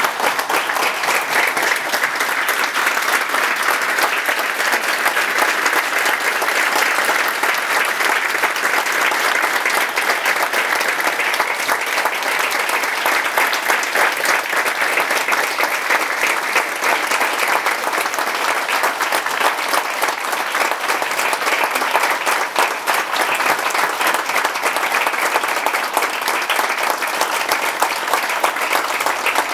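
Audience giving a sustained standing ovation, many people clapping steadily for the whole stretch.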